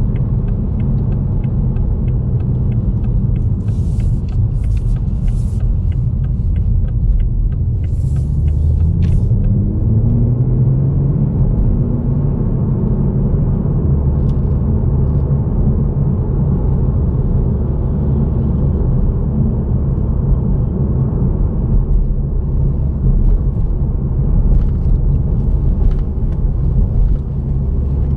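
Toyota GR Supra driving: a steady low engine and road rumble, with the engine note climbing as the car accelerates about ten seconds in.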